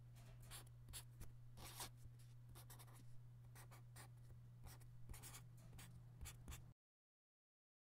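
Faint scratching of a pen drawing on paper: a quick, irregular run of short strokes over a steady low hum. It cuts off abruptly to silence near the end.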